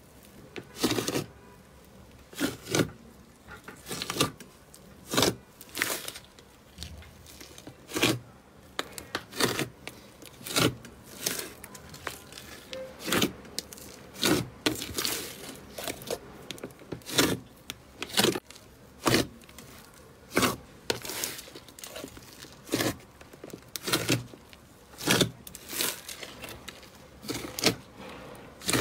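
Thick slime being pressed and kneaded by hand, giving short, sharp wet squelches and pops about one or two a second, unevenly spaced.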